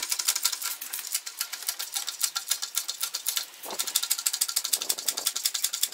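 Hydraulic floor jack being pumped to lift a car, heard as two faint lower strokes near the end. Over it runs a fast, even, high-pitched ticking, about ten ticks a second.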